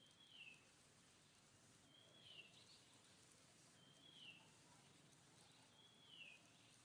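A bird calling faintly over quiet outdoor background, four times about two seconds apart: each call is a short high note that holds briefly and then slides down.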